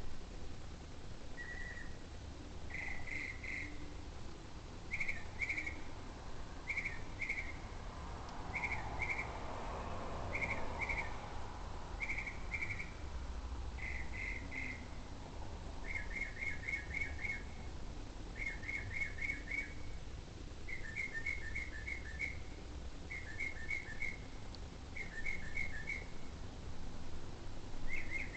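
An unidentified bird calling over and over in short high whistled phrases: at first a pair of notes roughly every second and a half, then, about halfway through, quick runs of four or five notes. A low steady rumble lies underneath.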